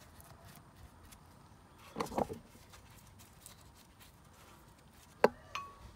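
Faint handling sounds as a brush applies high-temperature grease to a brake caliper bracket: a few quick knocks about two seconds in, then a sharp click of the brush against the metal bracket about five seconds in, with a weaker click and a brief ring just after.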